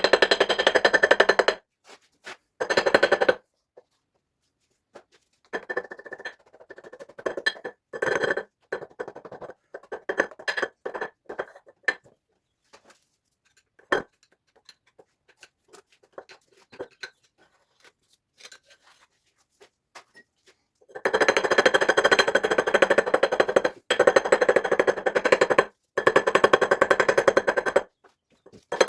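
Pneumatic impact wrench hammering in several bursts of a few seconds each. Between the bursts come scattered clinks and knocks of tools and metal parts.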